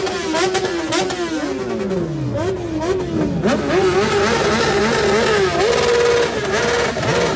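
Sport-bike engines on parked motorcycles revving at a standstill, several at once, the pitch sweeping up and down. One rev falls away about two seconds in, then a run of quick throttle blips follows.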